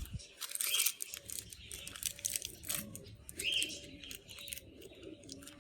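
Faint bird calls, with scattered light clicks and taps.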